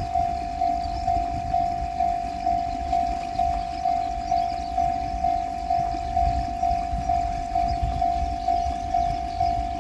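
Japanese level-crossing alarm bell ringing, a steady pinging tone repeating evenly about twice a second, with a low rumble underneath that grows louder around six seconds in.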